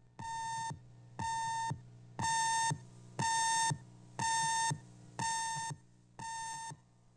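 Seven electronic beeps of a TV station's countdown leader, each about half a second long and one a second, all on the same buzzy tone, over a faint steady low hum.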